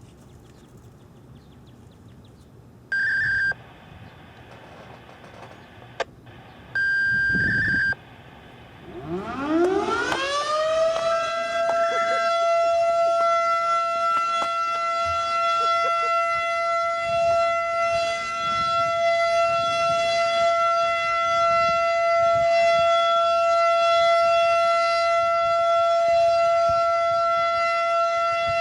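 Federal Model 5 electromechanical civil-defence siren winding up with a rising wail about nine seconds in, then holding one steady high tone. Before it start, two short high beeps.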